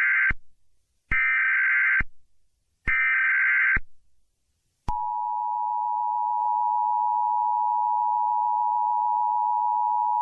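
Emergency Alert System alarm: three buzzy digital SAME header bursts about a second apart, then, about five seconds in, the steady two-tone EAS attention signal starts and holds.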